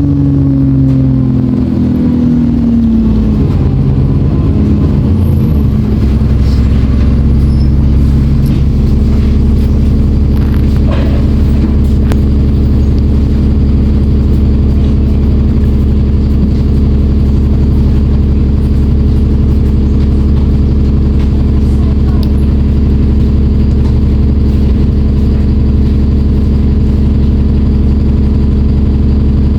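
Diesel engine of an ADL Enviro 400 double-decker bus heard on board, its revs falling over the first few seconds. After a few unsettled seconds it settles to a steady, unchanging note for the rest.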